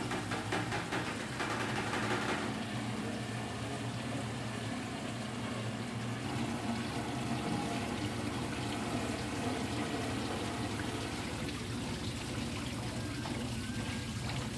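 Water showering down onto wet hanks of yarn turning on the rollers of a yarn-dyeing machine, a steady pattering spray over a low machine hum. This is the pre-wetting stage, which soaks the yarn so that it takes up the dye better.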